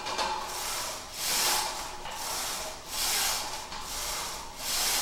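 Heavy rasping breaths of a lifter doing barbell bench press reps, one breath swell about every second.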